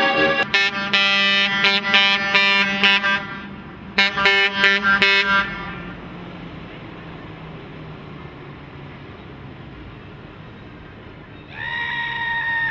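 Accordion playing short, choppy chords, which stop about five and a half seconds in. A truck engine then runs steadily, and near the end the truck's horn gives one steady blast lasting about a second.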